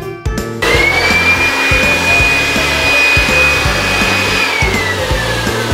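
Handheld electric blower inflating a large rubber balloon: its motor starts with a rising whine about half a second in, runs steady, then winds down near the end.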